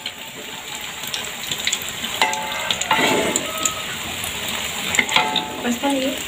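A fried-noodle-and-egg omelet sizzling in hot oil in a wok, with a spatula now and then scraping and tapping the pan.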